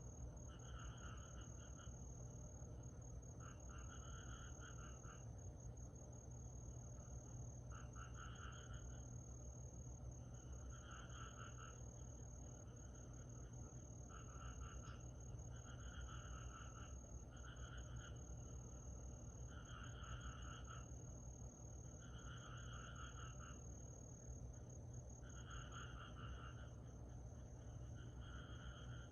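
Summer night insects calling: a steady, unbroken high trill, with a second, lower pulsed call about a second long repeating every two to three seconds. The chorus is faint.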